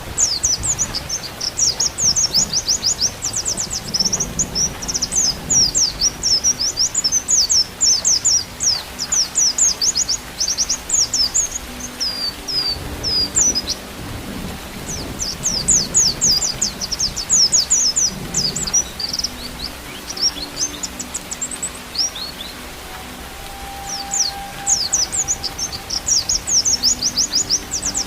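White-eye (pleci) singing in long, rapid twittering runs of high chirps, with short pauses between runs, over a low rain-like background.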